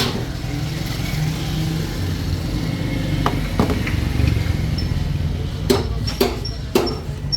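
A car engine running steadily at idle, with a few sharp metallic knocks near the end.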